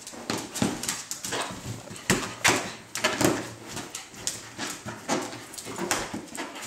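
Dachshund attacking a large helium balloon, with a rapid, irregular run of squeaks, rubs and scrapes from its teeth and claws on the balloon's skin. Claws click on the wooden floor, and the dog gives a few small whimpers.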